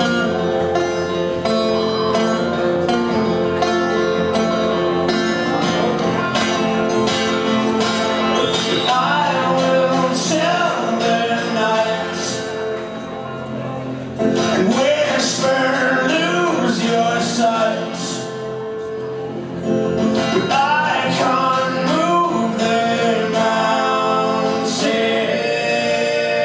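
Live folk band playing: strummed acoustic guitar and banjo with sung vocals, the singing rising and falling in long held lines. The music dips quieter twice, about halfway through and again two-thirds of the way in, before coming back.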